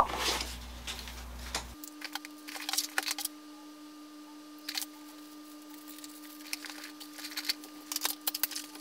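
Small clicks and light rustling of items being handled and packed into a canvas shoulder bag, over a faint steady hum.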